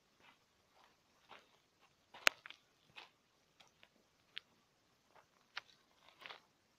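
Footsteps crunching on dry dirt and gravel at a slow walking pace, about two steps a second, with a sharp click a little over two seconds in.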